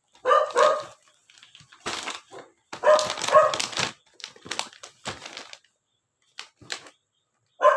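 A dog barking in two short bursts of a couple of barks each, one right at the start and one about three seconds in, with rustling and handling noises in between.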